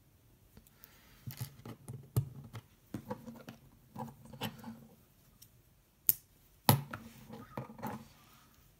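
Plastic LEGO pieces being handled and pressed together: a run of small clicks and rattles, with two sharp snaps a little past the middle.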